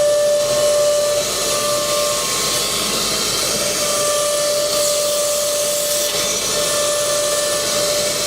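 Four-spindle CNC router running, a loud steady hissing noise with a high spindle whine that drops out briefly a couple of times.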